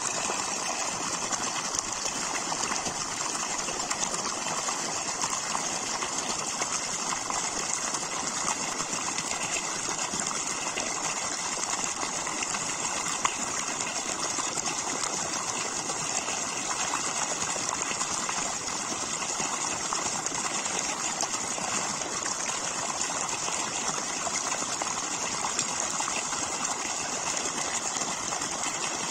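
Steady gushing of water churning and foaming at the surface, unbroken throughout.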